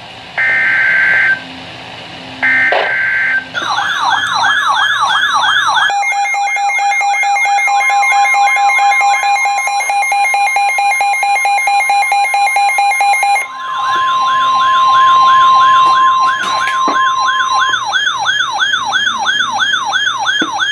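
Emergency Alert System broadcast tones. The end of a SAME digital header sounds as two short data bursts, completing a set of three. Then a fast-warbling, siren-like alert tone runs to the end, with a steady attention tone under it in the middle, joined by a second steady tone.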